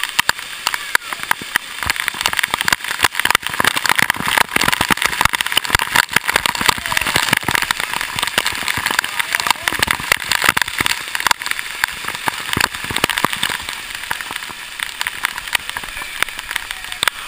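Waterfall spray and droplets striking an action camera's housing: a dense crackle of many small hits over rushing water, louder through the middle stretch.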